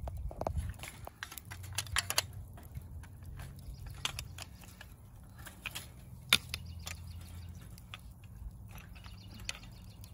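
Irregular sharp clicks and clinks of shellfish shells and metal tongs knocking against a wire grill basket as the shells are set out over charcoal, the sharpest about six seconds in, over a low steady rumble.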